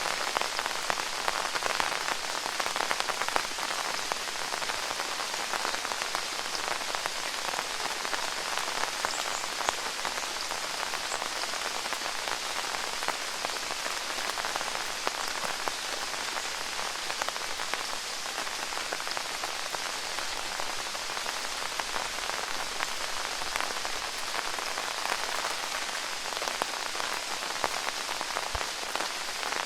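Steady rain falling, a dense patter of raindrops.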